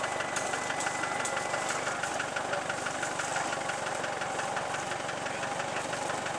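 Off-road 4x4 vehicle engine idling steadily with an even, rapid pulsing.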